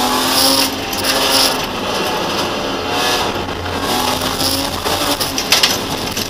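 BMW E30's M50B25 straight-six engine at full race revs, heard from inside the cabin, its pitch rising and falling as the driver works the throttle and gears. A few sharp clicks come near the end.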